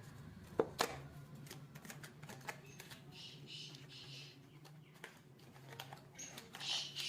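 Packaging of a microphone box being opened and handled: scattered sharp clicks and taps, with hissy rustling slides about three seconds in and again near the end, over a steady low hum.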